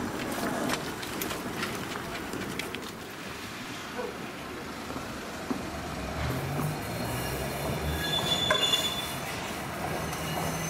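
Toden 7000-series tram's nose-suspended traction motors humming as it pulls away, the hum rising in pitch in steps from about halfway through. A brief high squeal from the wheels comes a couple of seconds later; before the tram moves there are scattered clicks and rattles.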